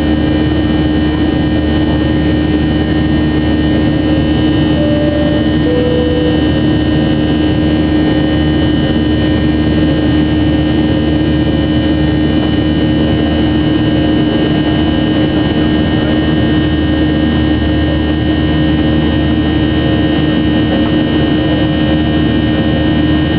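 Steady drone of a Boeing 737-800's CFM56 jet engines heard inside the passenger cabin during the climb after take-off. About five seconds in, a two-note high-low cabin chime sounds once over it.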